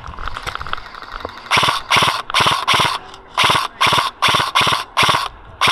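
Airsoft electric gun (AEG) firing about ten short bursts in quick succession, each a rapid rattle of shots, starting about a second and a half in.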